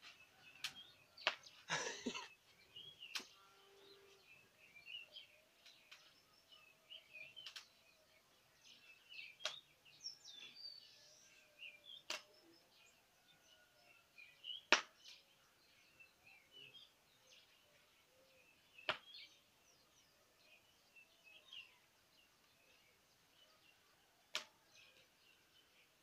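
Faint outdoor background of small birds chirping, broken by sharp clicks every few seconds, with a louder crackling burst about two seconds in.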